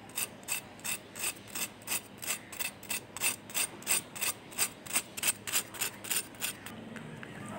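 Knife sawing back and forth through the crisp fried crust of a potato tikki, in even strokes about three a second that stop shortly before the end.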